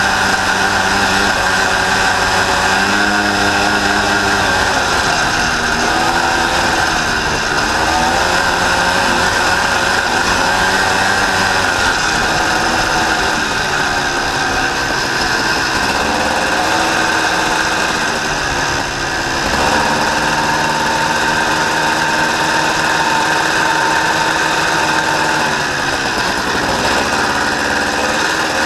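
Honda Odyssey FL350R buggy's single-cylinder four-stroke engine running under way, its pitch rising and falling again and again as the throttle is worked.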